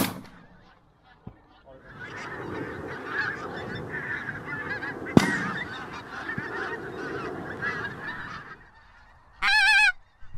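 A flock of pink-footed geese calling in a dense chorus, with a single shotgun shot about halfway through. There is a sharp crack at the very start, and one loud, clear honk near the end.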